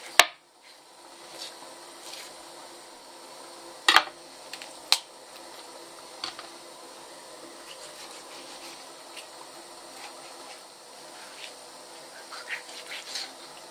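Kitchen knife knocking and clicking on a plastic cutting board while a whole raw chicken is cut into pieces: one sharp click right at the start, two more about four and five seconds in, and a run of small clicks near the end, over a steady hum.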